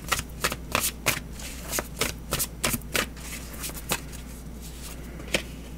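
A deck of tarot cards being shuffled by hand: a quick run of papery clicks for about four seconds, thinning out, with one more click near the end.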